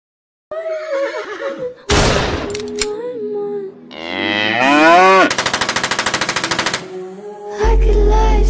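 Soundtrack of a dance clip made of sound effects. Silent at first, then a pitched voice-like sound, a sharp crash, a long call sliding upward and a fast rattle, with a deep bass beat coming in near the end.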